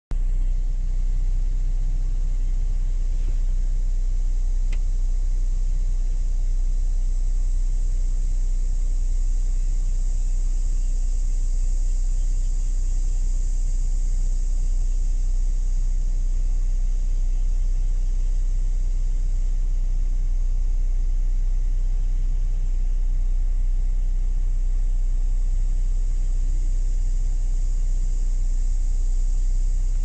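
A steady low rumble under an even high-pitched hiss that swells slightly midway.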